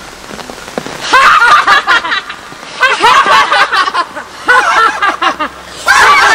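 A woman laughing loudly in four long, high-pitched bursts of about a second each.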